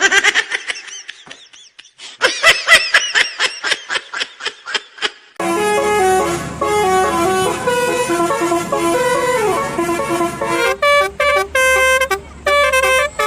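Telolet-style musical bus horn playing a stepped multi-note tune. It is preceded by a run of rapid pulsing tones and ends in short clipped notes.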